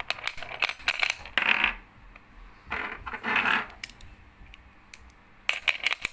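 Small brass parts from BBQ gas fittings clinking and clattering as they are set down by hand onto a digital kitchen scale. The metal pieces knock against the scale top and each other in three bursts of clatter: at the start, about three seconds in, and near the end.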